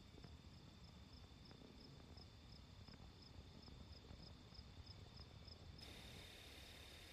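Near silence with a faint cricket chirping steadily, about three to four chirps a second. Near the end the chirping cuts off abruptly and a steady hiss takes over.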